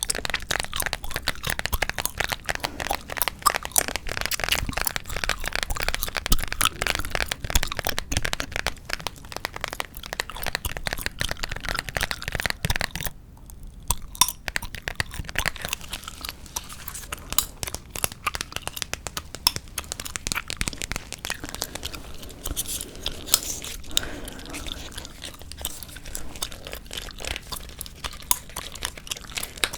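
Close-miked gum chewing: rapid, dense wet clicks and smacks, with a short break about thirteen seconds in and sparser clicks after it.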